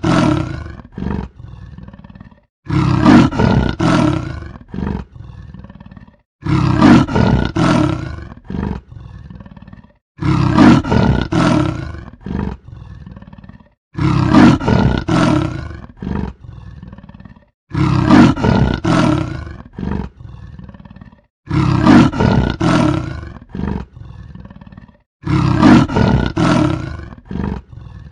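Leopard roaring: a group of loud calls that trails off into a few fainter ones, the same call repeating about every four seconds, seven times over.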